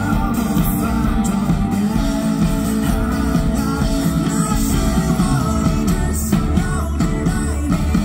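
Live band playing a rock song: a singer singing into a microphone over electric guitar and drums.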